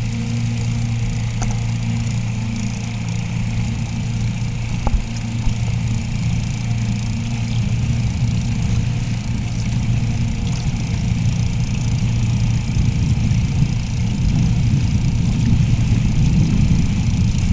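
Ski-Doo Summit snowmobile's two-stroke engine running steadily at speed as the sled skims across open lake water, a low drone that grows a little louder near the end.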